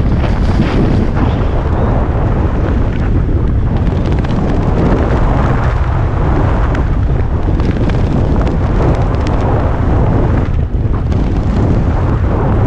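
Loud, steady wind buffeting on an action camera's microphone during a downhill ski run, with skis hissing and scraping over packed snow underneath.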